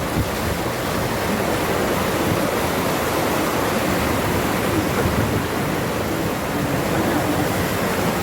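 Steady rushing noise with no distinct events, holding at an even level throughout.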